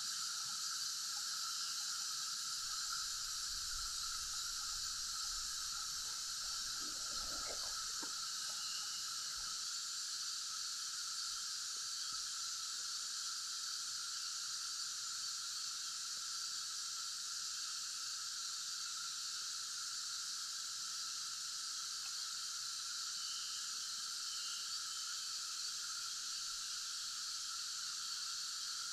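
Steady, high-pitched chorus of rainforest insects, a constant hiss held in a few fixed pitch bands, with a brief low rumble about six to eight seconds in.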